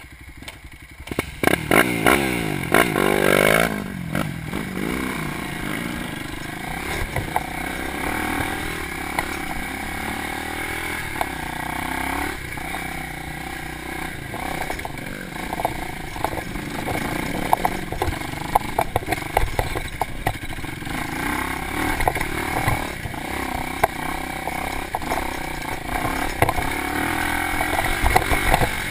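Dirt bike engine revving up as the bike pulls away about a second in, then running along under varying throttle, with frequent clattering knocks from the bike bouncing over a rough, overgrown trail.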